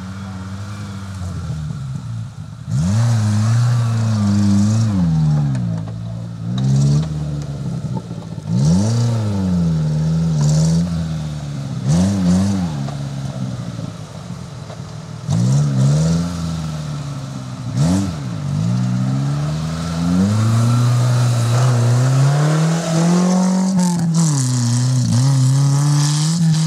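Off-road 4x4's engine revving in repeated bursts, its pitch climbing and dropping about half a dozen times, then held at higher revs for several seconds near the end while working through mud.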